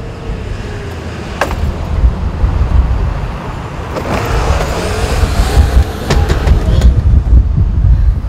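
Outdoor street noise: a loud, uneven low rumble of road traffic, with a few sharp clicks.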